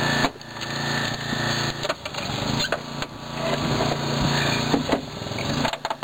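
Small petrol engine of a hydraulic rescue tool's power unit running steadily. Sharp cracks and creaks of sheet metal come through it at intervals as the tool's jaws crush a car's front wing.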